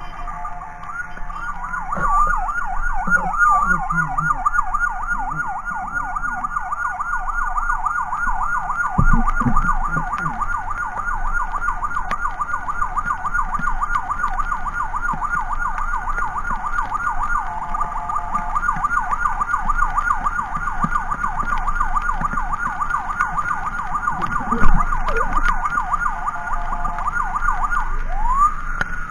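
Electronic emergency siren sounding continuously in a fast yelp, sweeping up and down several times a second, slowing to long rising-and-falling wails at the start and end. A single sudden low thump about 25 seconds in is the loudest sound.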